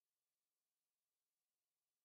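Near silence: only a very faint steady hiss.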